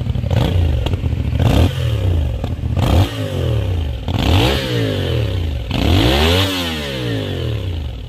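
CFMOTO 450SR's 450cc parallel-twin with a 270-degree crank, through its stock exhaust, revved from idle in about five throttle blips, each rising and falling in pitch, the last held longest, then dropping back to a steady idle near the end.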